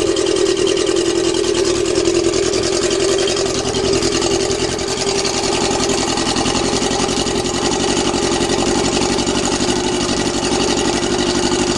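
Yamaha 650 motorcycle engine in a dune buggy idling steadily on a cold start, through its custom stainless steel exhaust, with a bit of a tinny sound.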